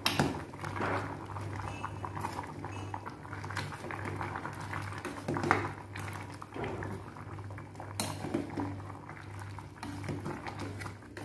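A metal spoon stirring a simmering soup of pork bones and jackfruit in a metal pot, clinking and scraping against the pot now and then over steady bubbling.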